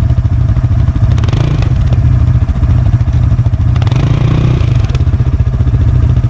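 ATV engine running hard off-road, a loud pulsing low engine note that picks up briefly about four seconds in.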